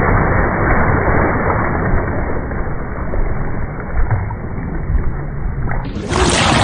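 Water splashing and churning as a large fish thrashes at the surface while held by hand. Just before the end a louder, fuller sound cuts in abruptly.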